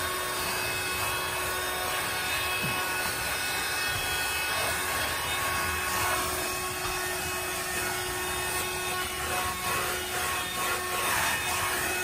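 Haukod cordless handheld car vacuum cleaner running steadily, its motor giving a constant whir with a steady hum.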